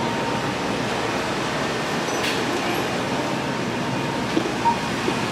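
Metro train running, a steady rail noise with a short high-pitched sound about two seconds in.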